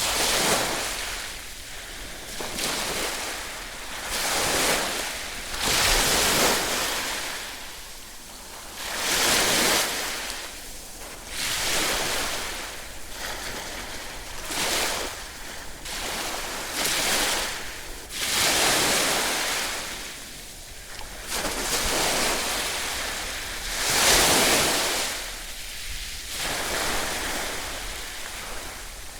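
Ocean waves breaking and washing on a shore, the surf hiss swelling and fading every two to three seconds.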